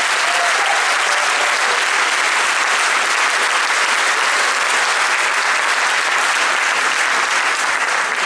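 A large seated audience applauding: dense, steady clapping that starts to die down at the very end.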